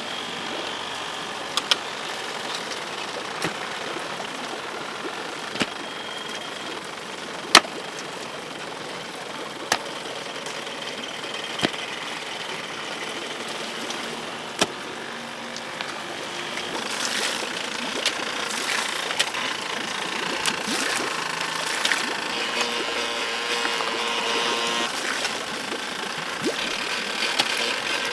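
Hand hoe striking into soil, a sharp knock about every two seconds, the loudest about halfway through, over a steady rushing background that grows louder and busier in the second half.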